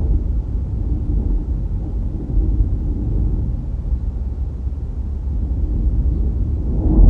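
Low, steady rumble of road and wind noise from a car driving, growing louder right at the end.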